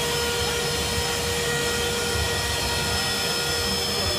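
Lavina 21-E electric floor burnisher running while it polishes a concrete floor: a steady high-speed whine holding several fixed pitches.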